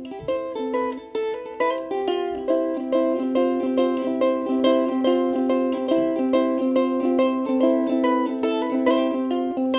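Ukulele music, with quickly plucked notes at a steady pace.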